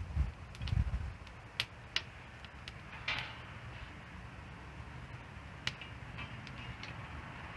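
Wood campfire crackling, with sharp irregular snaps and pops and a brief hiss about three seconds in. There are a couple of low thumps in the first second.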